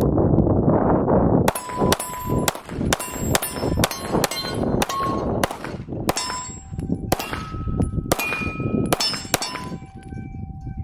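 A rapid string of pistol shots, about two a second, most followed by the ringing clang of steel plate targets being hit. The first second and a half holds a low rushing noise.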